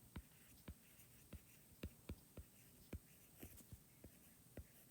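Near silence with faint, irregular taps of a pen writing, about two or three a second.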